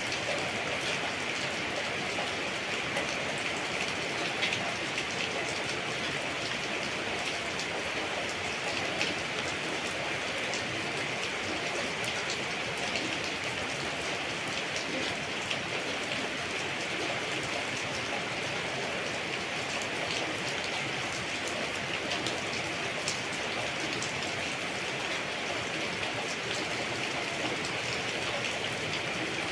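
Steady rain falling, with individual drops ticking now and then through the even hiss.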